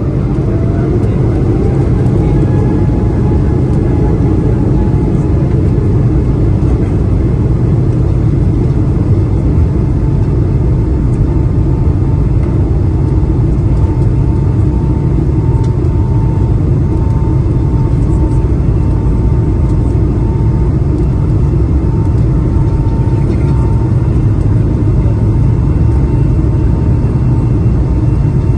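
Airbus A220-300's Pratt & Whitney PW1500G geared turbofans spooling up for takeoff: a whine rises over the first few seconds and then holds as a steady tone over a loud, steady jet rumble.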